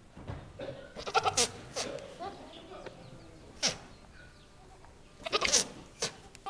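Nigerian Dwarf buck in rut making a series of short, breathy bursts and brief grunting calls, the loudest cluster about five seconds in. These are the noises of a buck worked up by does in heat.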